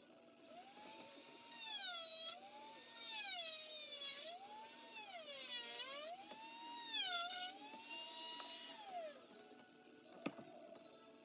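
Dremel rotary tool spinning up and trimming a plastic Nerf blaster shell: its whine sags in pitch each time the bit bites in, with four gritty cutting passes, then winds down near the end. A single click follows about a second later.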